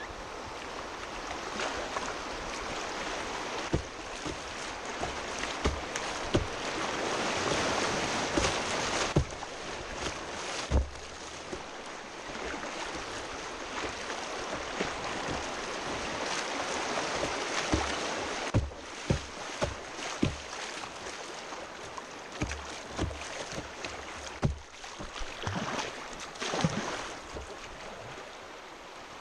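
Rushing water of a shallow, rocky river rapid right around a kayak, with frequent sharp knocks and splashes against the boat, most of them in the second half.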